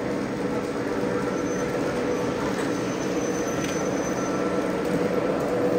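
Model train running on a layout track: a steady mechanical hum with a few faint whining tones, growing slightly louder near the end.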